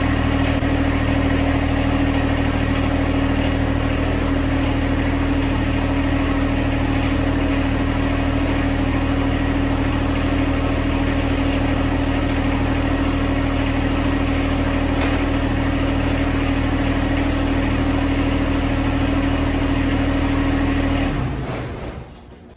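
John Deere 1025R compact tractor's three-cylinder diesel engine idling steadily, then stopping near the end.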